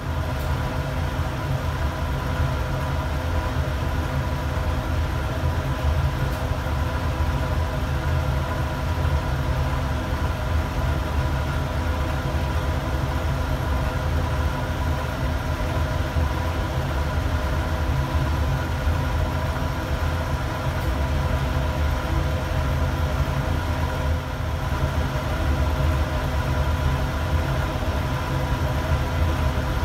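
Steady low mechanical hum with a few constant higher tones above it, unchanging throughout.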